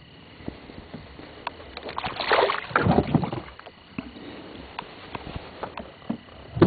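Water splashing and sloshing at the side of a small fishing boat as a hooked fish is hauled in, with scattered knocks on the boat. The splashing is loudest about two to three seconds in.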